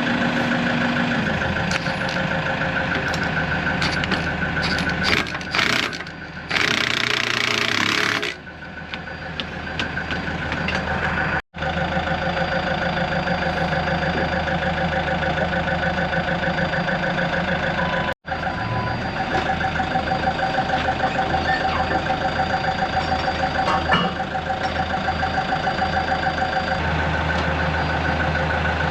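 Heavy-equipment diesel engine running steadily, with a loud hiss lasting about two seconds starting some six seconds in and a few knocks before it. The sound drops out briefly twice.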